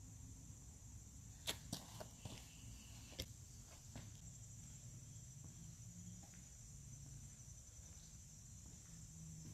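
Near silence: a faint steady high hiss over a low rumble, with a handful of sharp clicks about one and a half to three seconds in.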